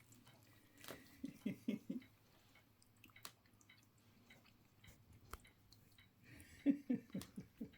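A cat lapping water from a pet drinking fountain: two quick runs of laps, one about a second in and another near the end, over a faint steady low hum.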